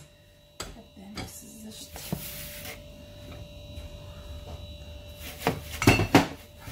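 Kitchen handling sounds at a countertop beside a glass baking tray: a few faint clicks and a brief rustle, then three sharp knocks in quick succession between five and six seconds in, over a faint steady hum.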